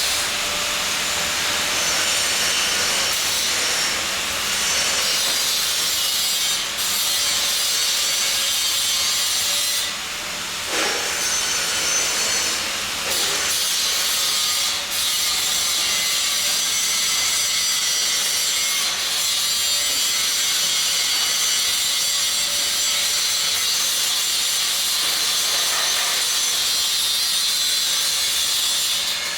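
Electric arc welding: a steady crackling hiss from the arc, broken briefly about ten and thirteen seconds in.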